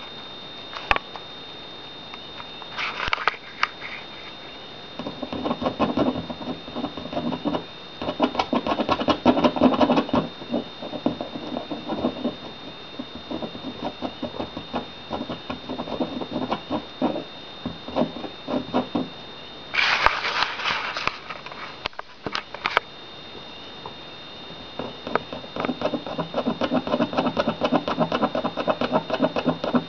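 Two Maltese puppies playing on a wooden floor: rapid pattering and scuffling of small paws and claws in several spells, with a couple of short rustling bursts.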